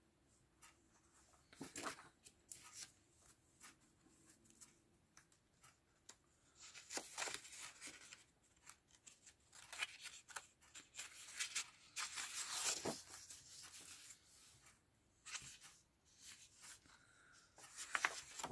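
Sheets of patterned scrapbook paper rustling and sliding against each other as they are leafed through by hand, in short, irregular bursts with small clicks between.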